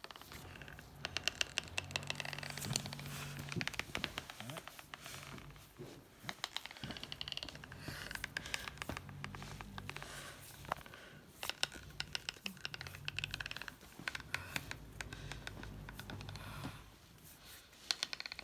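Teeth grinding (bruxism): rapid gritty clicking and scraping of tooth on tooth, coming in bursts of a second or two, over and over.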